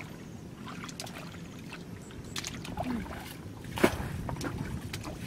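Hands sloshing and splashing in a shallow pool of muddy water while groping for fish, with scattered short splashes, the loudest a sharp slap near the end, over a low steady rumble.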